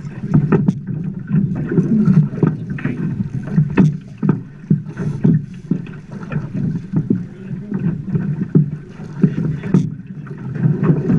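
Choppy river water slapping and splashing against the side of a boat in irregular knocks, with wind buffeting the microphone.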